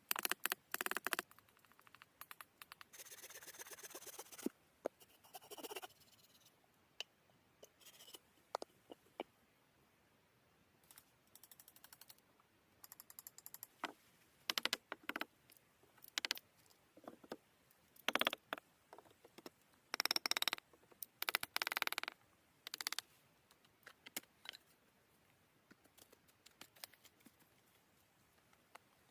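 Irregular scrapes, rustles and sharp clicks of materials being handled and worked, some short and some lasting about a second, with quiet gaps between them.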